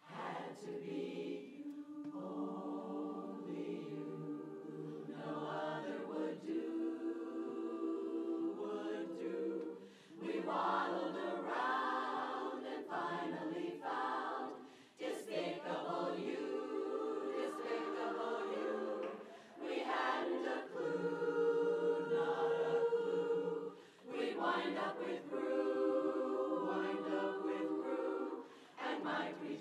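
Women's barbershop chorus singing a cappella in close four-part harmony: sustained chords in phrases broken by short breaks about every four to five seconds.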